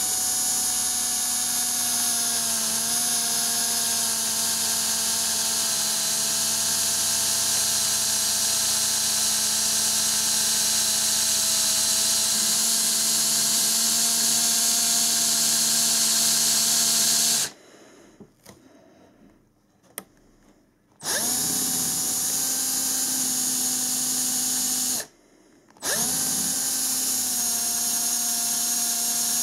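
Parkside PBSA 12 C2 12-volt cordless drill running in its fast second gear, boring a 6 mm metal-cutting bit into a wooden batten: a steady motor whine for about 17 seconds, a pause of a few seconds, then two shorter runs with a brief stop between them. The going is slow because a metal drill bit is being used in wood.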